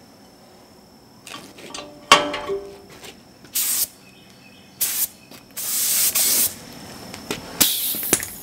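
Compressed-air paint spray gun spraying in short bursts, an even hiss about four times, the longest near a second, as primer goes onto a steel go-kart frame. A sharp knock about two seconds in, before the spraying.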